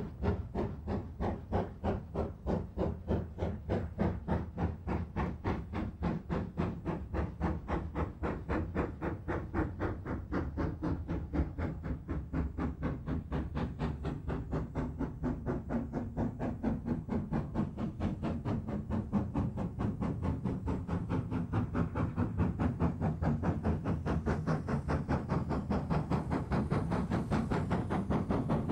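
Great Western Railway steam locomotive working hard as it pulls a train away, its exhaust chuffing in an even rhythm that gradually quickens and grows louder.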